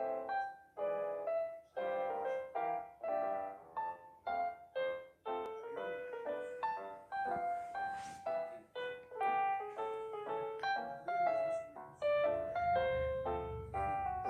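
Piano music: a lively melody of separate struck notes that comes in abruptly after a moment of silence.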